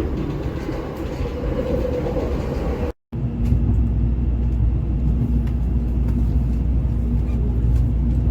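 Train rumble for the first three seconds, then a brief cut to silence. After it comes a steady, heavy low rumble with a constant hum, as heard inside a moving train.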